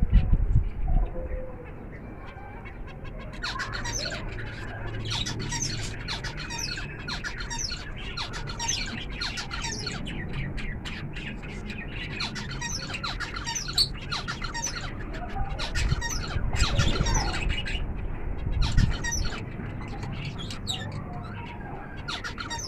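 Zebra finches calling: rapid short, high chirps that crowd together for about fifteen seconds after a few seconds' lull, then grow sparser. There are a couple of low bumps right at the start.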